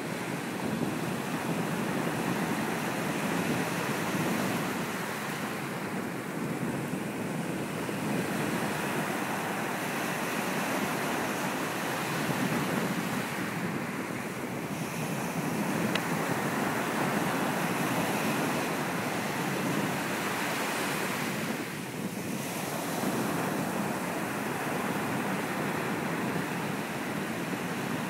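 Ocean surf breaking and washing up on a sand beach: a continuous rushing wash that swells and eases every few seconds as the waves come in.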